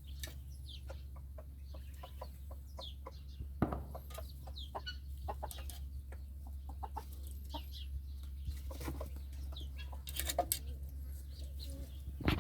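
Chickens clucking, with many short scattered calls and a louder call a few seconds in, over a steady low hum.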